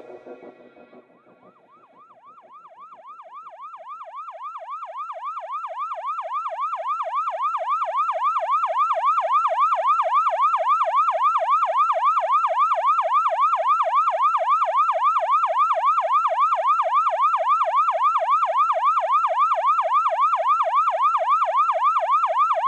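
Emergency-vehicle siren in a fast yelp, its pitch sweeping rapidly up and down over and over; it fades in from quiet over the first several seconds and then holds steady and loud.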